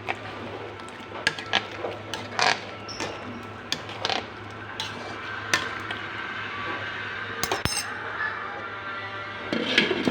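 Kitchen utensils and cookware clinking and knocking, about a dozen scattered sharp strikes with a busier cluster near the end.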